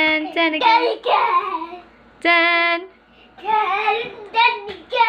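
A young child singing in short phrases, some notes held steady, with a couple of rougher, breathier sung syllables in between.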